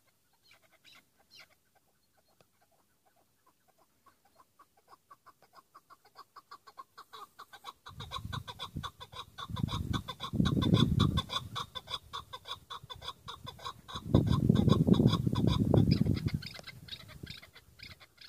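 Chukar partridge calling: a fast run of short clucking notes that starts faint and builds. It swells to two loud stretches, about halfway through and again near the end, with a low rumble underneath, then tails off.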